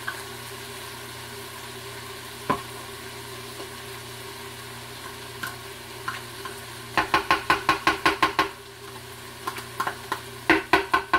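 Plain yogurt being tapped and scraped out of a small container into a food processor bowl: a fast run of sharp clicking taps, about eight a second for a second and a half, about seven seconds in, and a shorter, louder run near the end. A steady hum runs underneath.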